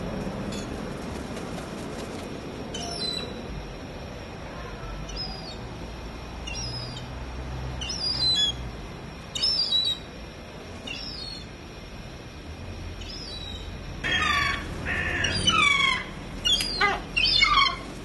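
Yellow-legged gulls calling: scattered short calls with a falling pitch at first, then a quick run of louder, closer calls in the last few seconds.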